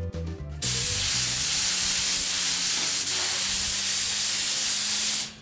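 Spray gun spraying paint: a steady, loud air hiss that starts about half a second in, just as background music ends, and cuts off suddenly just before the end.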